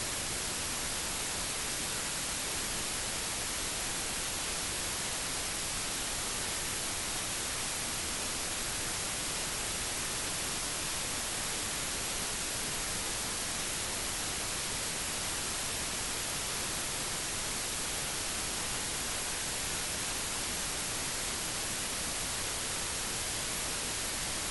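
Steady, even hiss of electronic recording noise, brightest in the treble, with no other sound.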